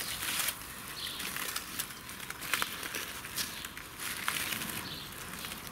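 Aluminium foil crinkling, with scattered small crackles and clicks as gloved hands pull it open and burnt crust crumbles off the roast.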